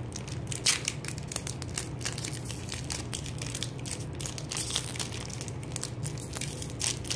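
Plastic wrapper of a Quest protein bar crinkling and crackling in irregular bursts as it is opened by hand.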